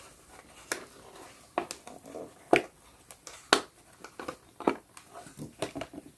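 Small toy figure and its packaging being handled during unboxing: about a dozen light, irregular clicks and taps with faint rustling.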